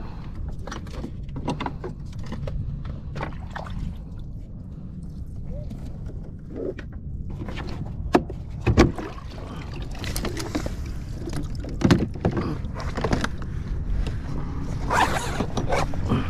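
Scattered knocks, taps and scrapes of a fish and gear being handled on a plastic fishing kayak's deck, over a steady low wind rumble. The sharpest knocks come about halfway through, and there is a rustle near the end as an insulated fish bag is pulled over.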